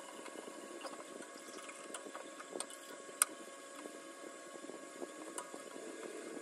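A silicone whisk stirring milk into a butter-and-flour roux in a stainless steel pot, a steady wet swishing as the béchamel sauce comes together. A few short clicks come through, the sharpest about three seconds in.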